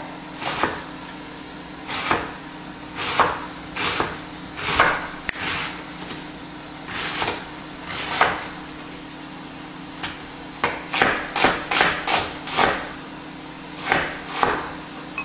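Chef's knife chopping red onion on a wooden cutting board: the blade knocks on the board at an uneven pace, in a quicker run of strokes about two-thirds of the way through.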